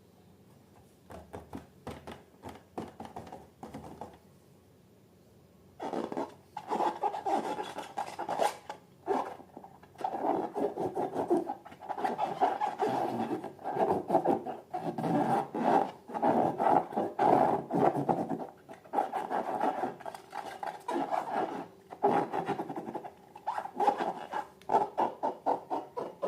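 Slime being squeezed and stretched by hand: irregular wet crackling and clicking, faint at first and then dense and louder from about six seconds in.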